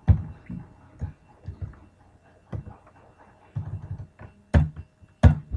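Computer keyboard keys being pressed: scattered irregular clicks, with a few sharper, louder strokes near the end.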